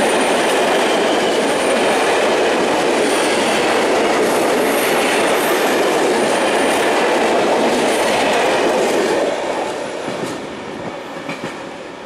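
Freight train of hopper wagons rolling past close by, a steady loud rumble of wheels on rails. About nine seconds in the last wagon passes and the sound fades away as the train recedes, with a few wheel clicks.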